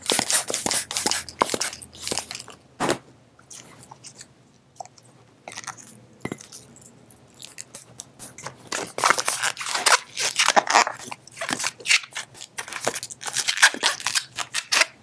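Latex twisting balloon (a small 160) being handled and stretched in the fingers: a run of crackling rubs and squeaks of latex on skin, coming in clusters with a quieter spell around four to five seconds in.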